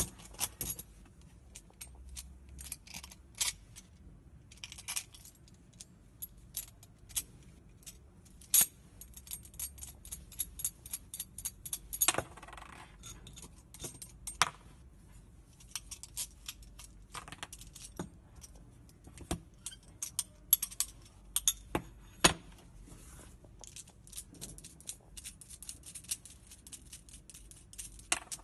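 Stainless steel parts of a ring-and-plate clamp clinking and clicking as they are handled and taken apart: rings, bolts and hex nuts knocking together and against a hard surface, with a few louder clanks and a short metal scrape.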